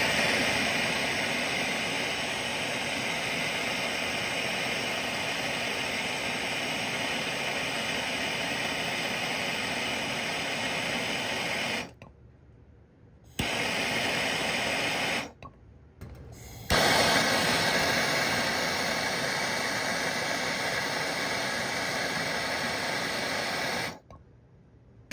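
Steady hiss of a MAP gas torch flame heating copper refrigerant line joints at the indoor coil to solder them. The hiss cuts off sharply about twelve seconds in, comes back twice, and stops about a second before the end.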